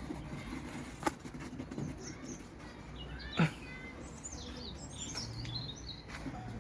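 Small birds chirping in short, high calls, most of them in the second half, over low outdoor background noise. There is a sharp click about a second in, and a single loud falling sweep about halfway through.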